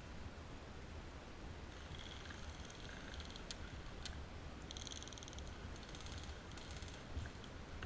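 Steady low rumble, with short bursts of high-pitched buzzing on and off and two faint sharp clicks about half a second apart in the middle.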